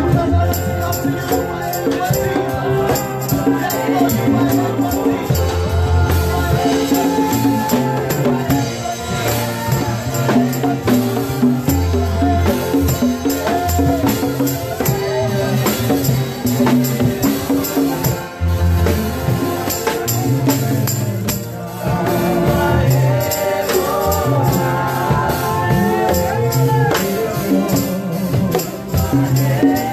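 Live gospel worship music: a group of singers over a pulsing bass line, with hand percussion shaking a steady rhythm.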